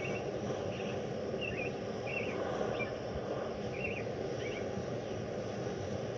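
A steady low rushing noise, with a small bird giving a string of short, separate high chirps.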